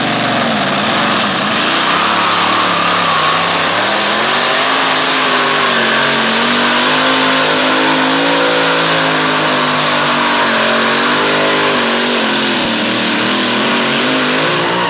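Pulling pick-up's V8 engine running flat out under heavy load, very loud, its pitch wavering up and down as the revs change.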